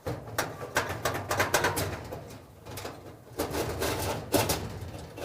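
Metal scraping and clicking as an electric dryer's heating element is pulled out of its sheet-metal housing, in irregular bursts.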